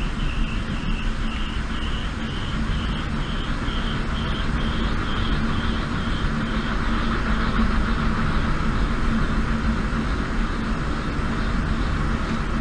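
Wind turbine spinning fast in a storm: a steady roar with a low hum under it, and a high whine that pulses about twice a second, fading out about seven seconds in.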